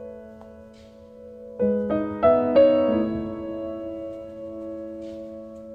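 Soft background piano music: held notes ringing, with a few new notes struck one after another about a second and a half in, then left to fade.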